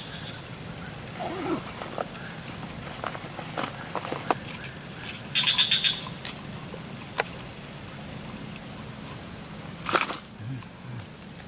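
Steady, high-pitched chorus of forest insects trilling, with scattered small clicks, a short rapid chirping about five to six seconds in, and a sharp knock about ten seconds in.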